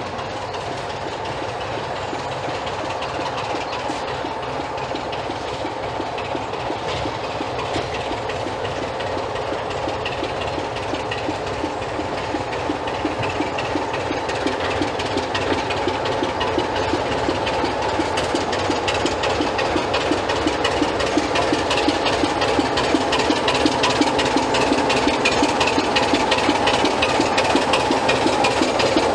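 BR Class 25 diesel-electric locomotive's engine running at low power while the locomotive moves slowly at shunting speed. It is a steady drone with a fast, even throb, growing gradually louder as the locomotive comes closer.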